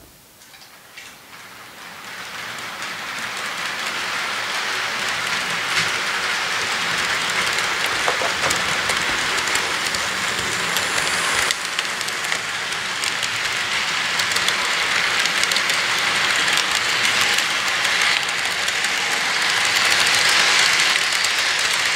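HO scale model freight train, hauled by a ScaleTrains Tier 4 GEVO locomotive, rolling past on the track: a steady rushing clatter of small metal wheels on the rails, peppered with little clicks. It builds up over the first few seconds as the train approaches, then holds.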